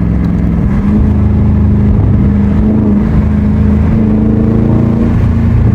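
Exhaust note of a 2021 Dodge Charger Scat Pack's 6.4-litre 392 HEMI V8 with a mid-muffler delete, running loud and steady under throttle. It steps up in loudness about a second in and holds there.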